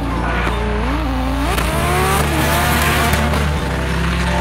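Drift cars' engines revving up and down with tyres squealing, over background music with a steady bass line.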